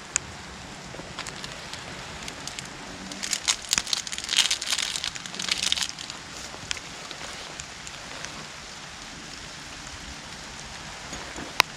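Steady rain patter, with a burst of crackling rustles starting about three seconds in and lasting a few seconds, and one sharp click near the end.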